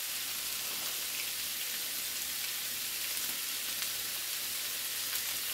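Shredded chicken and onions sizzling steadily in olive oil in a skillet, a constant high hiss of frying.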